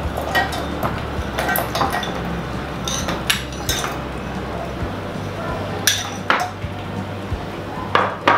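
Frozen mixed berries being spooned from a small bowl into a steel blender jar: several scattered clinks and knocks of spoon on bowl and berries dropping onto metal.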